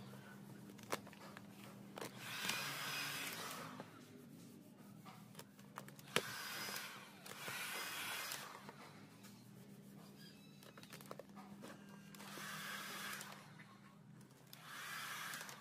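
Handheld heat gun blowing in four short bursts, its fan spinning up and down as it is switched on and off to heat vinyl wrap film. Between the bursts there are a few sharp clicks and a low steady hum underneath.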